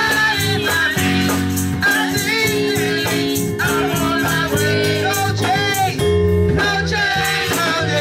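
Gospel song in church: several voices singing through microphones over a band with sustained low bass notes and a steady percussion beat.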